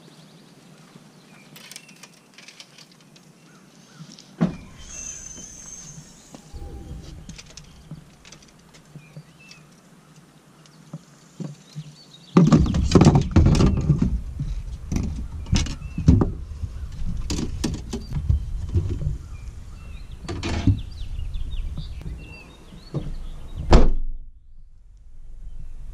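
Fishing rods and reels being handled and laid into an SUV's cargo area: repeated light clacks and knocks, busier and louder from about halfway with a low rumble, then the rear hatch shutting with one loud thunk near the end.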